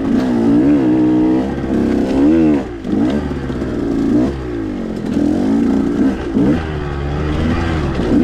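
2021 KTM 125 XC's two-stroke single-cylinder engine, fitted with an aggressive RK Tek head, revving up and falling back again and again as the throttle is rolled on and off while riding, about eight rises in all.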